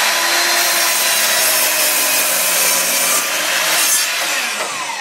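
Sliding compound miter saw (909 255DBUL, 10-inch, 15-amp) cutting through a thick wooden post. The blade runs loud and steady in the wood, and from about four seconds in the motor winds down, its whine falling in pitch.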